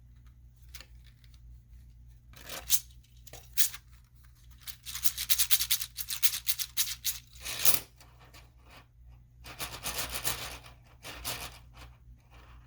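Hard 3D-printed plastic pieces being handled: irregular clicks, rattles and rubbing, with a fast run of clicks in the middle, over a low steady hum.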